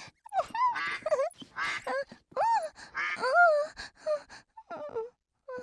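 A young child's wordless babbling and squeals: a run of short, high-pitched calls that rise and fall, one after another.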